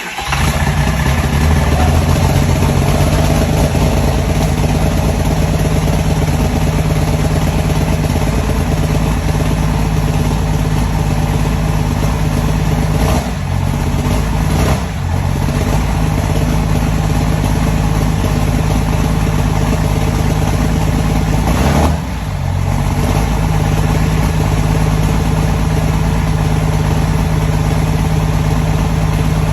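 Triple compound-turbo Cummins inline-six diesel in a Dodge Ram 2500, running steadily just after start-up. Its level dips briefly three times, twice close together about halfway through and once more a little later.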